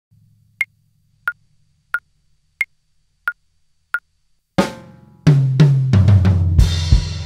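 Six evenly spaced count-in clicks, about one and a half a second, the first higher-pitched than the rest. Then an acoustic drum kit with Meinl cymbals comes in about four and a half seconds in: a cymbal crash with bass drum, followed by a run of drum strokes under ringing cymbals.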